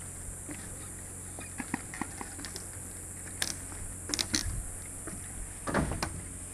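Irregular footsteps and knocks on a walkway bridge, a few sharp ones clustered about four seconds in and the loudest near the end, over a steady high-pitched insect drone.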